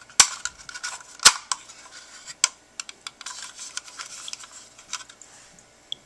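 Sharp plastic clicks and handling of a smoke detector's battery compartment door being snapped shut after a battery change. Three loud snaps come in the first two and a half seconds, the loudest about a second in, followed by lighter clicking and rubbing of plastic.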